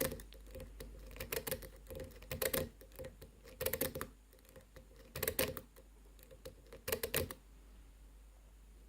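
Metal lock pick and tension wrench clicking and scraping inside a six-pin Medeco lock during picking, in irregular clusters of sharp clicks that stop about seven seconds in.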